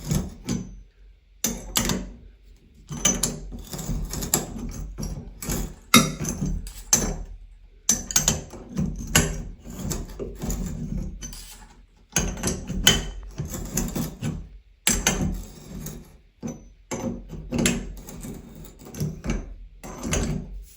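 Wrench tightening a new shower faucet cartridge into the valve body: repeated bursts of metallic clicking and rattling in short strokes with brief pauses between them.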